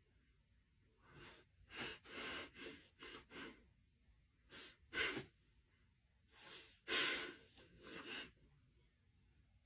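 A dog sniffing and snuffling close up at a person's face: irregular little clusters of short, noisy breaths, the loudest about five and seven seconds in.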